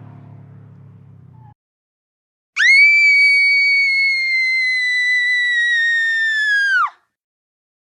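A single long, high-pitched whistle-like tone of about four seconds, starting sharply, sinking slightly in pitch and dropping away at the end, after the fading tail of an earlier sound.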